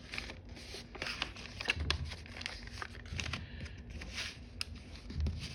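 Sheet of origami paper rustling and crinkling in the hands as it is folded and creased, in irregular short crackles and taps.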